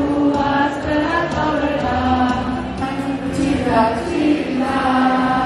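A group of voices singing a song together over music, moving through long held notes.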